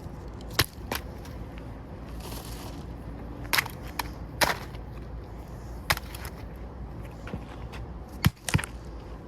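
Scattered sharp knocks and cracks, about eight in all at uneven intervals, as the plastic body and parts of a defective camcorder are broken apart.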